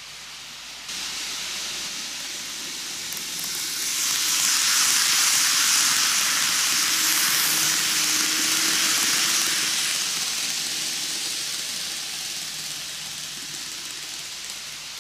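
N gauge model train of Keikyu 2100 series cars running on TOMIX superelevated track, its wheels and motor making a steady hissing rattle. The sound swells as the train passes close by, about four to ten seconds in, then fades as it runs off.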